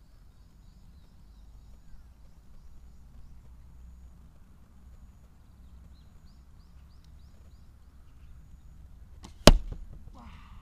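An arrow striking the tatami-mat target close by, one loud sharp hit about nine and a half seconds in, with a short rattle after it.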